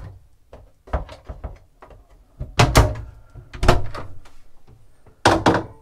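Wood-veneer cupboard door on concealed hinges being swung open and shut: a series of short thuds and knocks about a second apart, with a loud one near the end.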